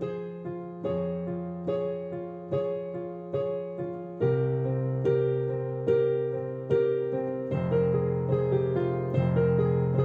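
Slow solo piano music: single notes or chords struck about once a second and left to ring and fade, growing fuller and louder about four seconds in.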